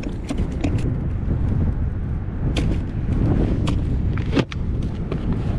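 Clicks and knocks of fish and a cloth being handled in a small plastic cooler, with a sharper plastic knock about four seconds in, under a steady low rumble.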